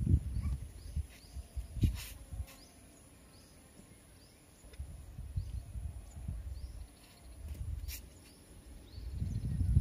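Outdoor ambience: faint short bird chirps repeat throughout over a steady high insect whine, broken by irregular low rumbling bursts that are loudest at the start, about two seconds in and near the end.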